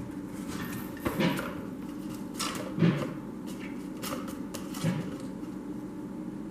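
A few irregular knocks and clatters, the loudest about a second in and again near three seconds, over a steady low room hum.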